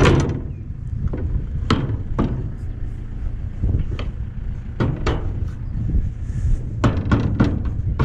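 Tractor engine running with a steady low rumble, with a dozen or so sharp metallic knocks and clanks at irregular intervals over it.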